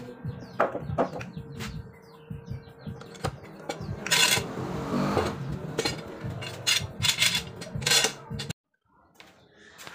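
Metal clanks, clicks and rattles from a homemade steel rebar bar clamp being handled, its sliding jaw knocking and scraping along the ribbed rebar bar. The sound cuts out suddenly for a moment near the end.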